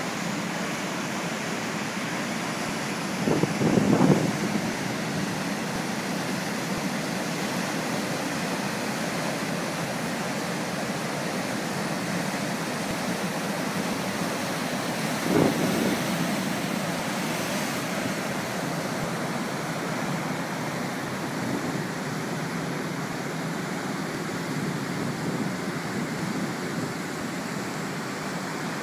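Rough storm surf breaking and washing up the shore in a steady rush of white water, with wind on the microphone. Two brief louder bursts stand out, about three seconds in and again about halfway through.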